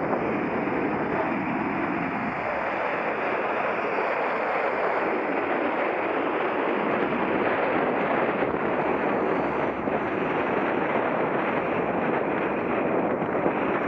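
Steady rush of wind over a bicycle-mounted action camera's microphone while riding, with road traffic noise mixed in.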